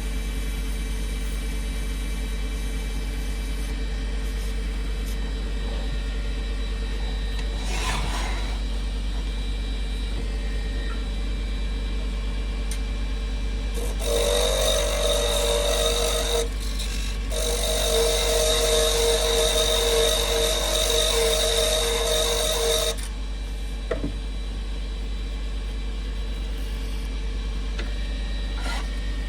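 Wood lathe running steadily with a curly cherry blank turning. About halfway through, a tool or abrasive is pressed against the spinning wood for about nine seconds, with a short break after the first two, giving a loud rough scraping over the motor hum.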